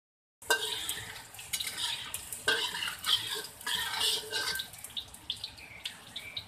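Ginger strips being stirred in hot oil in a wok with a spatula: the spatula scrapes and knocks against the wok over a sizzle. The stirring stops about two thirds of the way in, leaving quieter sizzling with scattered pops.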